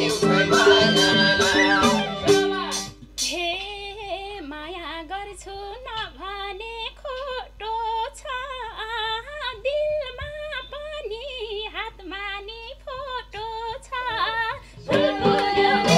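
Nepali dohori folk band of madal drums and harmonium playing a beat that stops about three seconds in. A woman then sings a solo line alone, her voice quivering and sliding in pitch, until the band comes back in near the end.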